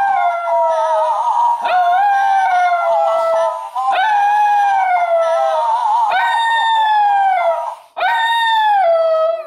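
A schnauzer howling: a run of long howls, each rising quickly and then falling slowly in pitch. A new howl starts about every two seconds, the last ending near the close.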